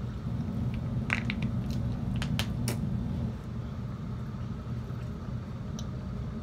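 Eating at the table: a few sharp crinkles and crunches between about one and three seconds in, from chewing a taco and handling a foil wrapper, over a steady low hum.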